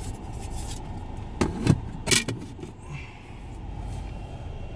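Low steady rumble of a car, with three sharp clicks and knocks close together about one and a half to two seconds in.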